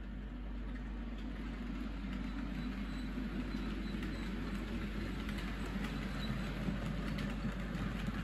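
OO gauge model Class 47 locomotive hauling TEA oil tank wagons along the track: a steady mechanical rumble from its electric motor and wheels that grows gradually louder as the train approaches, with a few faint clicks from the wheels on the rails.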